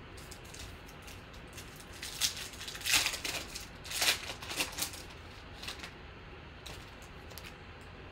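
A foil trading-card pack wrapper crinkling and tearing as it is ripped open by hand. This comes as a cluster of sharp rustling bursts about two to five seconds in, with small clicks of handling before and after.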